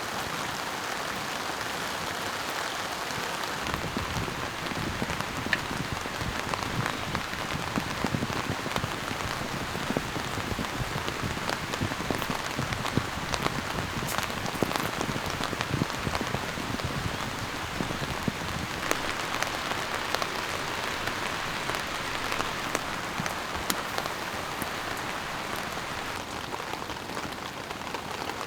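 Steady rain falling on tent fabric, an even hiss scattered with many sharp ticks of single drops.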